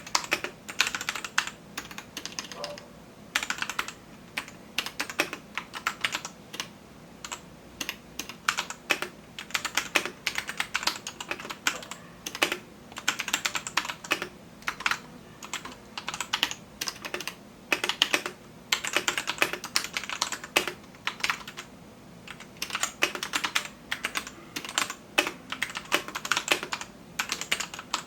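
Typing on a Royal Kludge RK84 mechanical keyboard: fast runs of key clacks in bursts, broken by short pauses.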